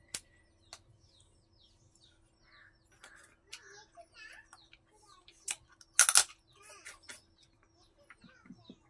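Close-up eating sounds as a mutton bone is worked for its marrow: sharp smacking and sucking clicks, loudest about six seconds in. Small birds chirp in the background.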